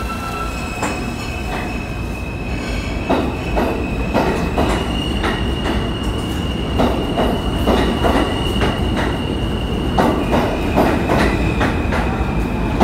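A New York City subway train of R160A cars pulling out of the station, its wheels clacking over the rail joints faster and faster as it picks up speed, under a steady high whine.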